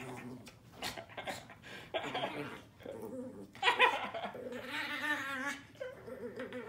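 Small dog growling in repeated bouts as it play-fights and snaps at a hand, with scuffling as it wrestles.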